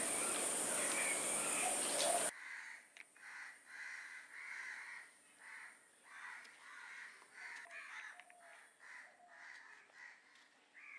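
Faint, repeated harsh cawing of birds, about two calls a second, with a few soft clicks among them. For about the first two seconds a louder steady hiss sits over it, then cuts off suddenly.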